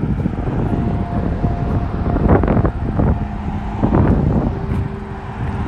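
Street traffic passing by, with wind buffeting the microphone. Engine hums come and go over a steady low rumble.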